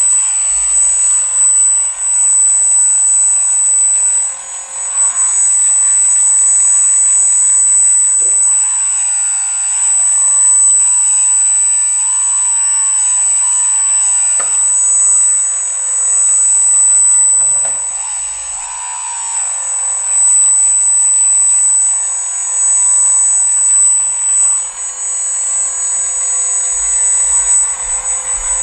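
Hydraulic pump and electric motors of a radio-controlled skid-steer loader model whining steadily, the pitch wavering and dipping at several points as the forks lift a crate and the machine drives.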